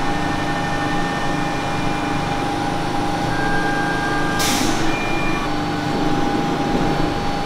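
Stratasys Fortus industrial FDM 3D printer running as it begins a print: a steady machine hum with whining motor tones that change pitch now and then, and a short hiss a little past halfway.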